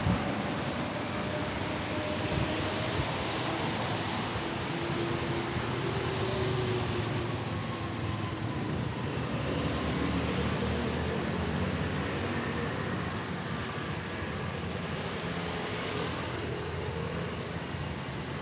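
City street traffic: a steady wash of noise with vehicle engines passing, their pitch gliding slowly.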